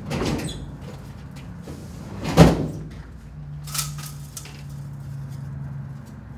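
Knocks and clatter of office furniture and papers being handled, the heaviest knock about two and a half seconds in, then a short rattle of window blinds being parted, with a low steady hum in the second half.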